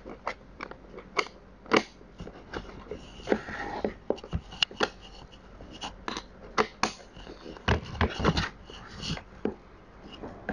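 Bar wrench tightening down the bar nut of an electric chainsaw: a string of irregular metal clicks and scrapes as the wrench is turned and refitted on the nut.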